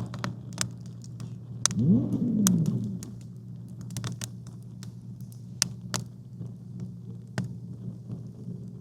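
Campfire crackling: scattered sharp pops at irregular intervals over a steady low hum. About two seconds in, a short pitched sound bends up and back down and is the loudest thing heard.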